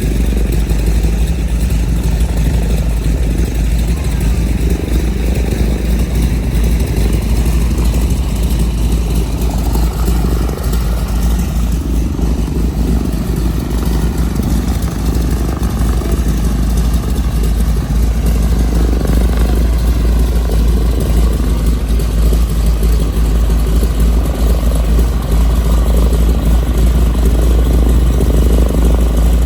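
Vintage trainer aircraft's radial piston engine running steadily at idle, a loud low rumble.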